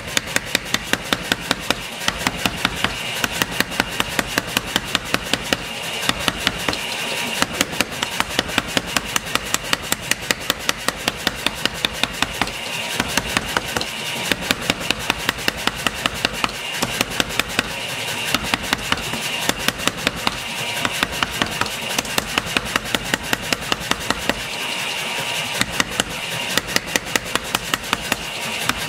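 Power hammer pounding a red-hot steel knife blank on its anvil die, about four blows a second in runs broken by short pauses: the blade being drawn out under the hammer.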